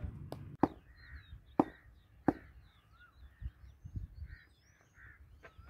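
Birds calling: faint crow caws and higher chirps from small birds. Three sharp knocks come in the first couple of seconds.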